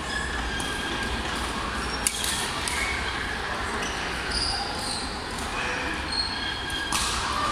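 Echoing sports-hall ambience of badminton play: a sharp racket-on-shuttlecock hit about two seconds in and another near the end, over scattered short shoe squeaks, faint background voices and a low hall rumble.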